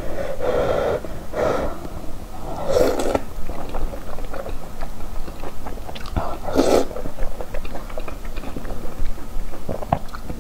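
Close-miked eating of scalding-hot food from a chili-oil broth: soft wet chewing clicks throughout, broken by a few breathy slurps and intakes of air in the first three seconds and again about six and a half seconds in.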